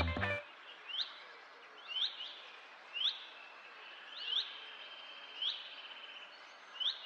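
A bird chirping over faint outdoor background hiss: short, sharply rising chirps about once a second, with a longer steady note in the middle. A music track cuts off just at the start.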